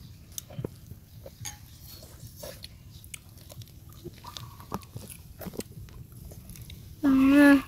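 A child eating: soft biting, chewing and mouth-smacking clicks. Near the end a loud, wavering cry lasts about half a second.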